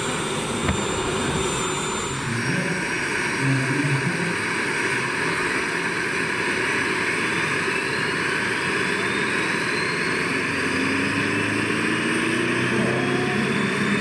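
Jakadowski Pro X model gas turbine of a large scale EC-145 helicopter starting up: a steady turbine rush comes in about two seconds in, and a whine rises slowly in pitch as the turbine spools up and the main rotor begins to turn.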